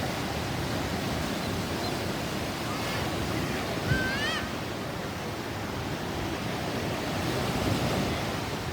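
Sea surf washing steadily, with a brief high warbling sound about four seconds in.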